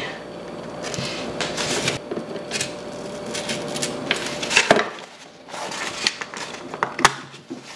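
Scissors cutting through corrugated cardboard in a run of rough crunching snips, then the cardboard sheet being handled and shuffled, with a few sharp clicks.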